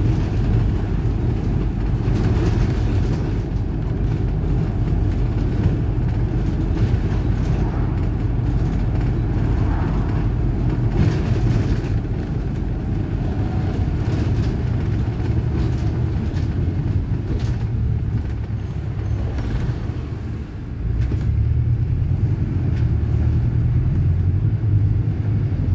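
City bus engine and road rumble heard from inside the cabin while the bus is moving, a steady low drone. About twenty seconds in it briefly drops, then comes back stronger.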